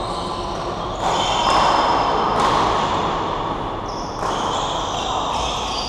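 Badminton hall ambience echoing in a large room: shoes squeaking on the court floor and shuttlecocks being struck on several courts at once, over a steady hubbub.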